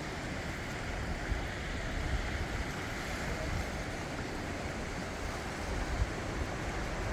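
Outdoor shoreline ambience: wind buffeting the microphone in uneven gusts, over a steady wash of surf.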